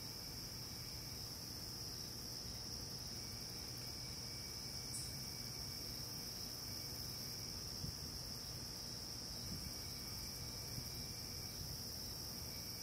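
Crickets trilling steadily in one high, unbroken tone, with a fainter, lower insect trill that starts and stops every few seconds.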